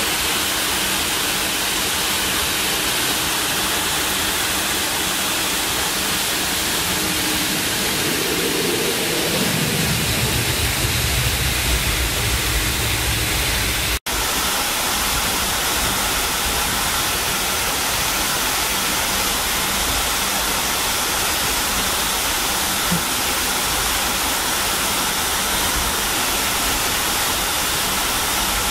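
Steady hiss and rumble of an MD-80's cabin while taxiing, its rear-mounted Pratt & Whitney JT8D turbofans at low thrust. About a third of the way in, a low tone falls in pitch and a louder low rumble follows. The sound cuts out for an instant near the middle.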